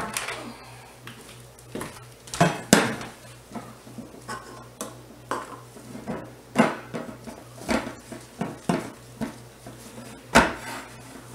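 Stainless steel wire basket mold frame clanking and rattling against a countertop while a white loaf-mold liner is fitted into it. It makes an irregular string of metallic clicks and knocks, with the sharpest ones about two and a half seconds in and near the end.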